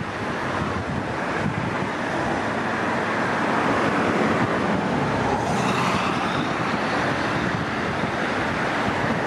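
Road traffic: cars passing below on a multi-lane highway with steady tyre and engine noise, swelling as vehicles pass close around the middle. Wind buffets the microphone.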